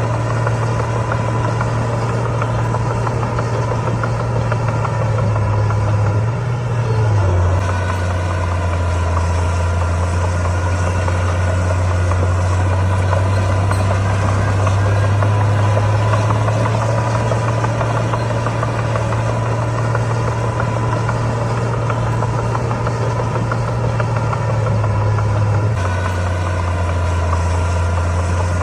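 Komatsu D41P bulldozer's diesel engine running steadily under work. Its low drone drops in pitch about seven seconds in and again near the end.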